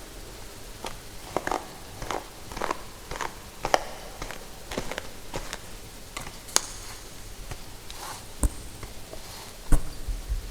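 Close-up ASMR hair chewing: a run of crisp, crunchy clicks and snaps as hair is bitten, irregular at about two a second, with a louder snap near the end.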